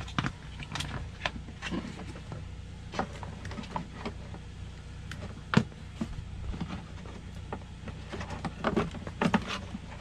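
Plastic clicks and knocks as a new HVAC blower motor is handled and worked up into its plastic housing, with one sharp knock a little past halfway and a cluster of knocks near the end. A steady low hum runs underneath.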